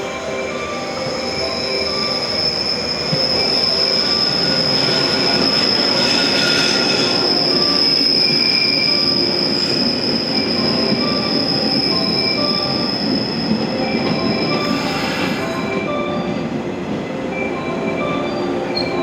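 Electric train running into a station, its wheels and brakes giving a long, steady high-pitched squeal over the rumble of the running gear. The squeal dies away near the end.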